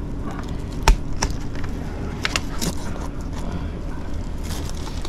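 A sailfish being cut in two by hand, its backbone breaking with a sharp crack about a second in, then a few lighter clicks and scrapes of knife and fish on the cooler lid, over a steady low rumble.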